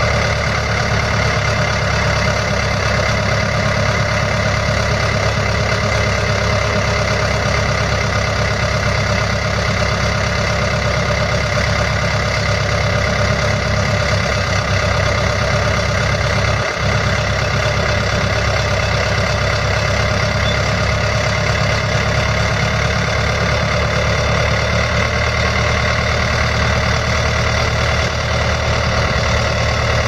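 Case 1845C skid steer's four-cylinder diesel engine running at a steady speed while the loader arms raise and lower the bucket.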